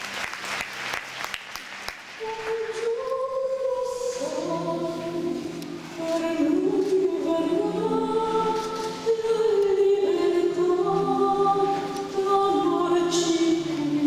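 Slow choral music for a free skate program, with long held notes shifting slowly in pitch and growing louder about six seconds in. Applause dies away in the first two seconds.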